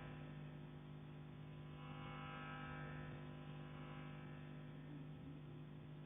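A steady low hum, with a faint hiss swelling and fading about two to three seconds in; no knocking is heard.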